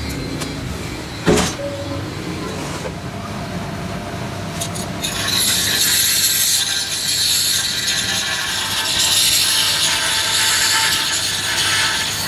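A single loud knock about a second in, then from about five seconds a power tool spinning an abrasive disc runs steadily against the bearing bore of a cast iron tractor transmission housing, a loud, even grinding hiss.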